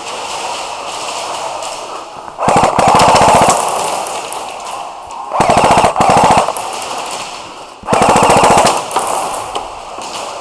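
Airsoft electric rifle (AEG) firing three full-auto bursts of about a second each, a rapid even rattle of shots. Fainter scattered airsoft fire can be heard in between.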